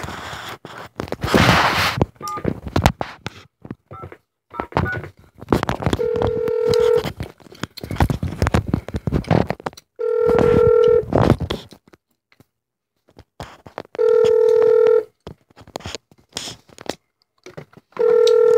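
Telephone ringback tone heard through a phone's speaker while an outgoing call waits to be answered: four steady rings, each about a second long and about four seconds apart. Clicks and rustling handling noises fall in between, busiest in the first two seconds.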